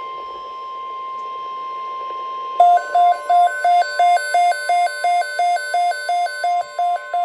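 Weather radio alert: the steady high 1050 Hz warning alarm tone that announces a tornado watch. About two and a half seconds in, a rapid beeping of about three beeps a second joins it, stepping between two pitches over the continuing tone.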